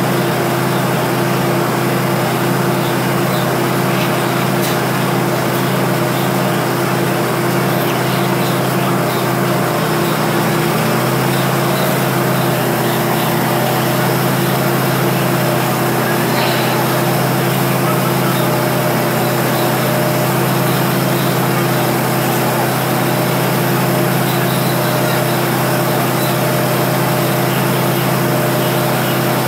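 Diesel train's engine idling with a steady hum while the train stands at the platform, with voices of a crowd in the background.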